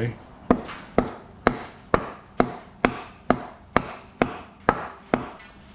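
Piston being tapped down into the cylinder of a John Deere two-cylinder engine block: eleven sharp, even taps, about two a second, driving the No. 1 piston the rest of the way in past the rings.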